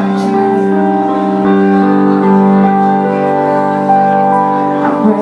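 Live band music: sustained keyboard chords held and changing every second or so, with no singing.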